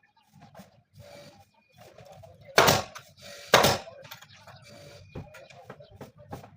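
Two sharp impacts about a second apart, with faint knocks and clicks between, from fastening upholstery onto an armchair's frame.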